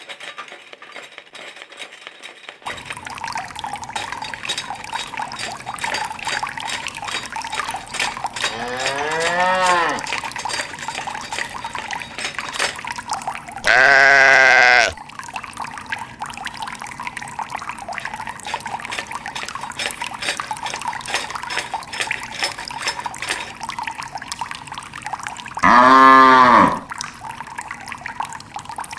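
Three farm animal calls, cattle moos and a bleat, about 9, 14 and 26 seconds in, the middle one the loudest. Under them is a steady noise of running water.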